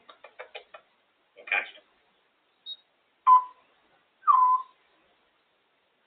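African grey parrot vocalizing: a quick run of clicks, a short raspy sound, a brief high peep, then two short, loud whistles about a second apart, the second dipping and then holding its note.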